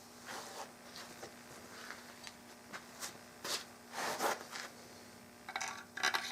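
Short scrapes and clicks of metal rifle parts being handled against a wooden gun stock, irregular, with the loudest around the middle and a quick rattle near the end, over a steady low electrical hum.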